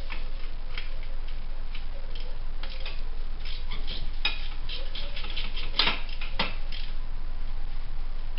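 Ratchet wrench clicking in quick irregular runs as a bolt at a motorcycle's muffler mount is turned, with metal clinks; the loudest two come about six seconds in.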